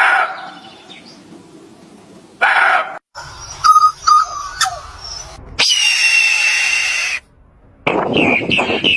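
A string of different bird and animal calls cut one after another: short calls, a burst of sharp clicks and brief notes, one long steady call, then rapid repeated calls near the end.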